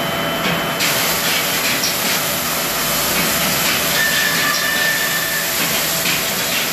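Woodworking machinery and its dust extraction running: a loud, steady hiss that gets brighter about a second in, with a high whine joining about four seconds in for a second and a half.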